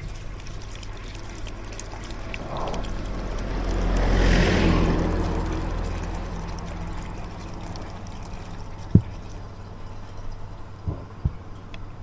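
Gasoline being poured through a funnel into a fuel tank. The flow swells to a gush a few seconds in, then tapers off, over a steady low hum.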